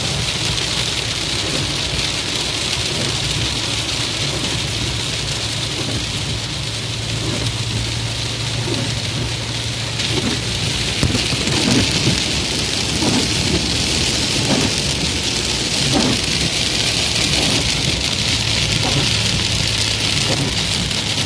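Heavy rain drumming on a car's roof and windshield, heard from inside the moving car as a steady even hiss, with scattered short taps. A steady low hum from the car's engine and tyres runs underneath.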